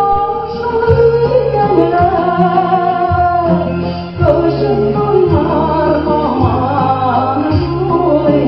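A woman singing a song into a microphone, amplified, over an instrumental accompaniment with a steady, stepping bass line.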